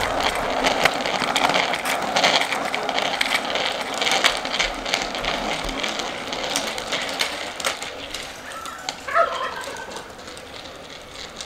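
A small child's bicycle with training wheels rolling and rattling over concrete, with a steady stream of small clicks and clatter that fades as the bike moves away. A short high call is heard about nine seconds in.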